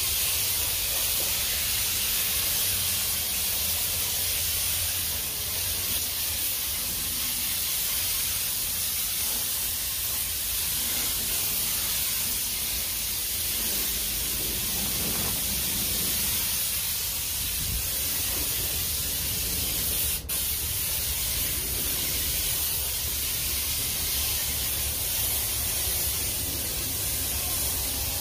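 Compressed-air spray gun with a siphon cup hissing steadily as it sprays wood finish, with one very short break about two-thirds of the way through.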